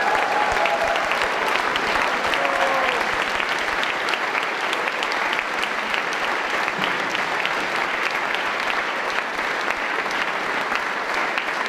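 Audience applauding steadily, with a few brief voices calling out over the clapping near the start.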